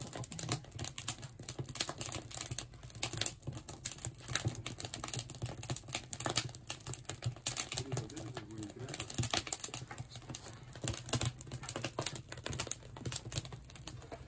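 Wood fire crackling and popping in the fireboxes of a wood-fired salt-glaze kiln, with many irregular sharp crackles: the kiln's slow drying pre-fire.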